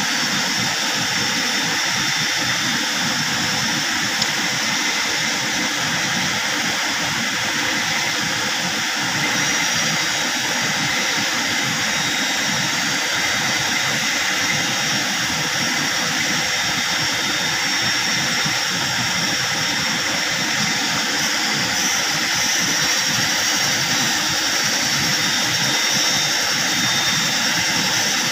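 Swift river current rushing past, a steady unbroken noise of fast-flowing water.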